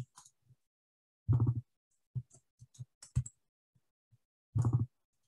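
Light computer keyboard typing and clicks while code is edited, with two louder, short low-pitched sounds, one about a second in and one near the end.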